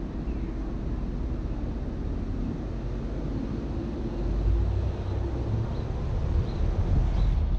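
Car driving, with a steady low rumble of road and wind noise that swells a little about halfway through. A few faint short high chirps sound over it.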